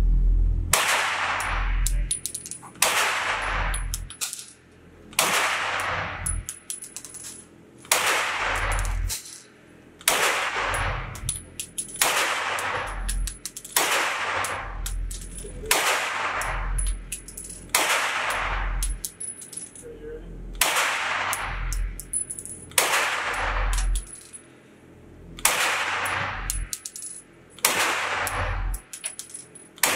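Beretta CX4 Storm 9mm direct-blowback carbine firing slow, aimed single shots, about fifteen of them, one every second or two. Each shot is loud and leaves a long echo off the concrete of an indoor range, with light metallic clinks between shots.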